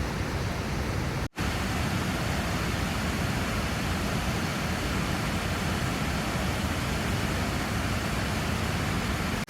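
Abiqua Falls, a waterfall plunging into its pool, giving a steady, even roar of falling water. The roar drops out for a split second about a second in, then carries on unchanged.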